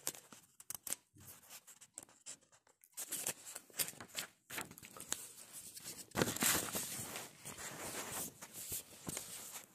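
Rustling, scraping handling noise close to a phone's microphone, with scattered clicks for the first few seconds and a denser rustle from about three seconds in.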